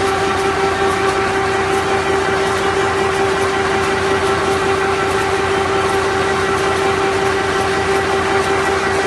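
Paper shopping-bag making machine running steadily: a constant pitched hum over a dense, rapid mechanical clatter.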